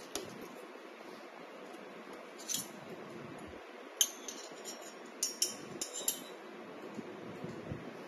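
Small metal fixture parts of a flexure tester clinking and clicking together as they are handled. There is a single click near the start, another about two and a half seconds in, then a sharp clink about four seconds in and a quick run of clinks around the middle.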